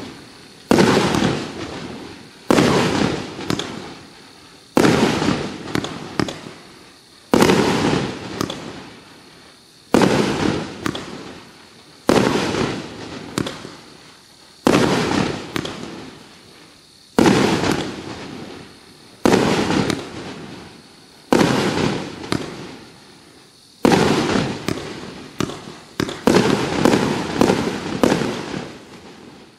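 A 25-shot consumer firework cake firing about a dozen shots, one every two to two and a half seconds, each a sharp bang followed by a fading crackle; the shots come quicker near the end.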